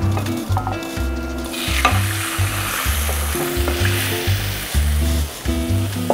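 Beaten egg poured into a preheated frying pan, sizzling as it hits the hot pan from about a second and a half in, with background music and its steady bass beat underneath.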